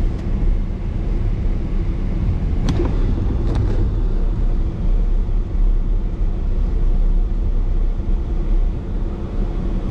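Car driving, heard from inside the cabin: a steady low rumble of engine and road noise, with two brief clicks about three seconds in.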